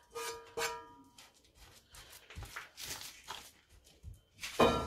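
Spatula scraping and patting semolina toffee mixture out flat on a buttered tray, a string of short scrapes and knocks with a louder knock near the end.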